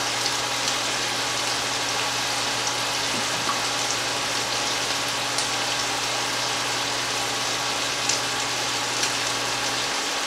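Chicken breasts frying in coconut oil in a pan, a steady sizzle with a few light clicks, over a low steady hum that stops near the end.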